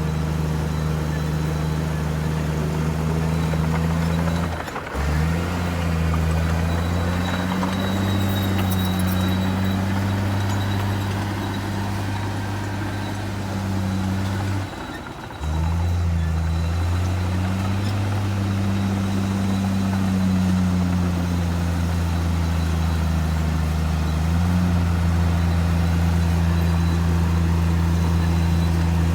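Komatsu D58E-1 bulldozer's diesel engine running under working load, its pitch rising and falling as the load changes, with two short drops in sound about five and fifteen seconds in.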